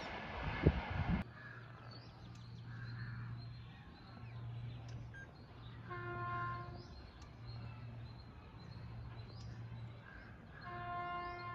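A low gusty rumble for about the first second, then a faint steady low hum with birds chirping. A distant locomotive sounds its horn: one short single-pitched blast about six seconds in, and a longer one starting near the end.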